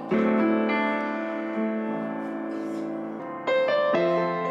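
Yamaha upright piano played slowly in sustained chords, each left to ring and fade. The chords change about every second, with a loud one struck at the start and another about three and a half seconds in.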